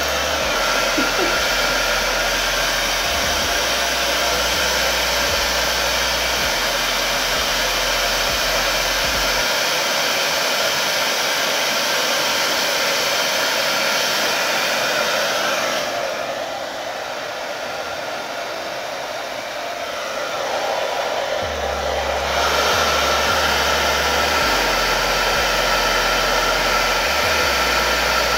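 Handheld hair dryer blowing steadily on a weave as it is brushed straight. The blowing sound drops and dulls for a few seconds past the middle, then comes back full.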